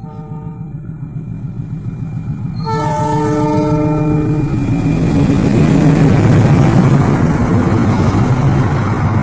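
KAI CC206 diesel locomotive sounding its horn: a short note at the start, then a longer, louder blast about three seconds in, followed by the rising rumble of the engine and wheels as the train comes past.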